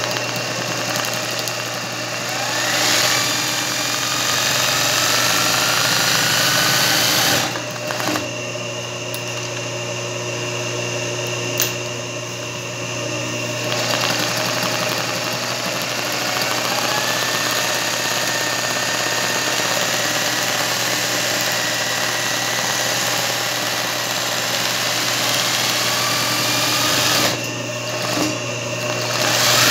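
Singer 20U industrial zigzag sewing machine stitching free-motion satin-stitch embroidery. It runs steadily, speeding up and slowing down, with short stops about seven seconds in and again near the end. A steady low hum carries on through the stops.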